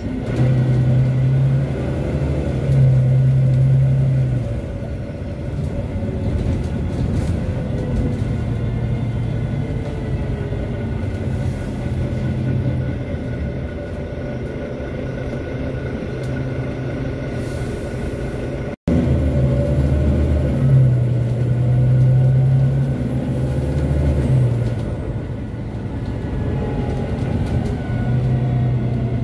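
Inside a Volvo B9TL double-decker bus under way: the diesel engine drones over road rumble, swelling and easing as the bus accelerates and slows, with its pitch gliding down near the start and rising near the end. The sound cuts out for an instant about two-thirds of the way through.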